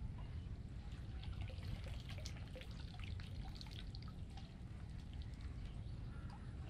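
Water dripping and trickling out of a woven bamboo fish trap as it is lifted out of shallow water, in many small scattered drops.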